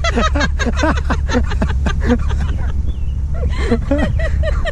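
A woman laughing, in quick runs of short 'ha' sounds with a brief pause about three seconds in, over the steady low rumble of the convertible car running.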